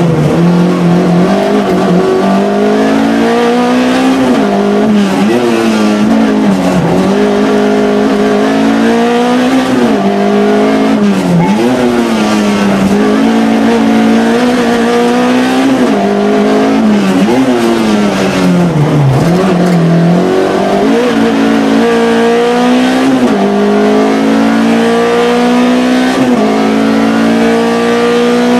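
In-cabin sound of a Peugeot 106 rally car's four-cylinder engine driven hard. The engine pitch climbs steadily and drops sharply again and again as it runs up through the gears and comes off for corners.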